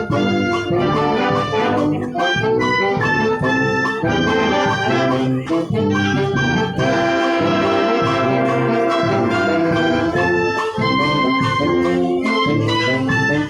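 Brass band playing Christmas music, trumpets and trombones together in full harmony, with a long held chord about halfway through.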